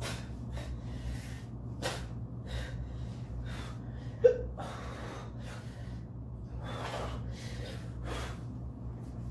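A man gasping and panting through his mouth, a string of short, noisy breaths, his mouth burning from a very hot sauce. A single sharp hiccup comes about four seconds in.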